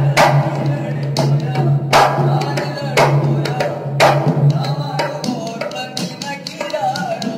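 Live folk music for a string-puppet dance: a drum struck about once a second, over a steady low drone that fades partway through, with a wavering melody above.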